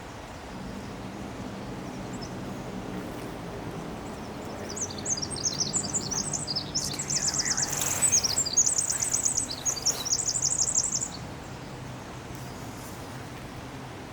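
Birds calling with quick high-pitched chirps and rapid trills, starting about five seconds in and stopping about eleven seconds in, over a steady low hum.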